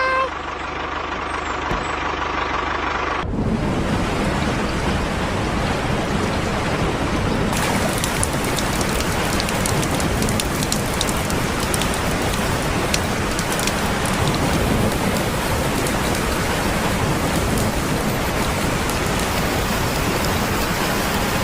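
Steady rain falling, a dense hiss with fine patter of drops, starting abruptly about three seconds in.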